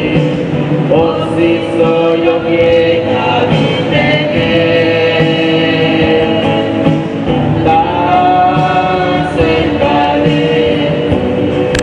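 Several voices singing a slow religious hymn together, with long held notes that glide from one to the next.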